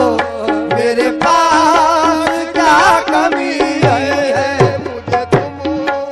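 Indian devotional song music: tabla beats under steady held notes and a wavering melody line.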